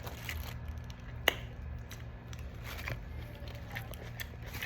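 A person chewing a mouthful of chicken curry and rice, with small wet mouth clicks and one sharp click about a second in.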